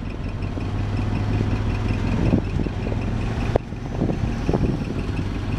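A vehicle engine idling steadily, with a sharp knock about three and a half seconds in.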